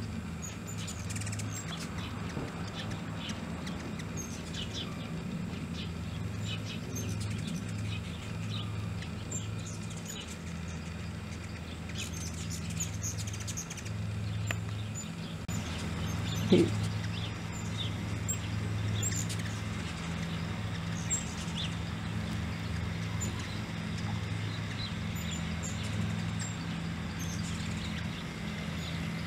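Ruby-throated hummingbirds chirping in short, high chips scattered throughout, over a steady low hum. A single thump about halfway through is the loudest sound.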